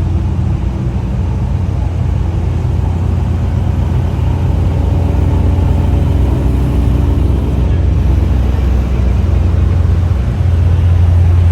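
Car engine running with a deep, steady rumble, growing slightly louder and stepping up in level near the end.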